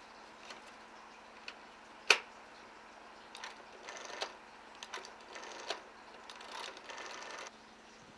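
Rotary telephone dial being dialled: a sharp click about two seconds in, then the dial whirring back with a ratcheting chatter three times, the last run the longest.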